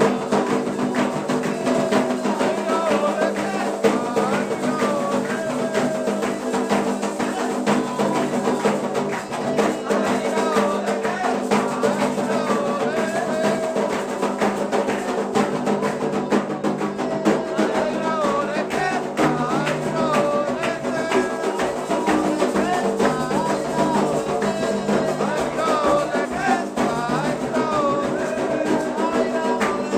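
Candomblé ritual song: voices singing a wavering melody over a steady rhythm of hand drums and percussion.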